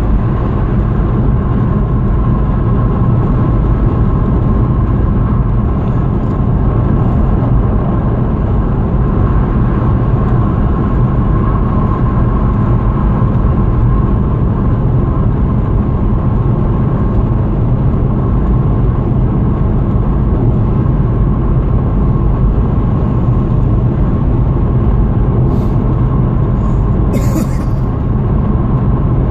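Steady road and engine noise of a car cruising at motorway speed, heard from inside the cabin: a constant low rumble of tyres and engine with no change in pitch.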